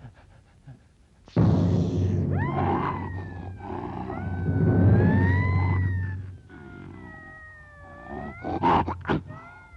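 Cartoon sound effect: a loud noisy roar starts about a second and a half in. Wavering, gliding wail-like tones rise and fall over it. It dies down after a few seconds into softer gliding wails and a few quick sharp sweeps near the end.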